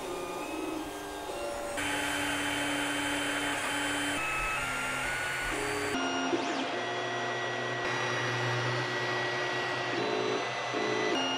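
3D printer printing: its stepper motors sing in steady tones that jump from pitch to pitch as the print head changes moves, over a steady whirr from its fans. The sound changes abruptly about two and six seconds in.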